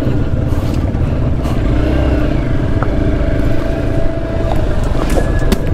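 Motorcycle engine running steadily as the bike rides along the road.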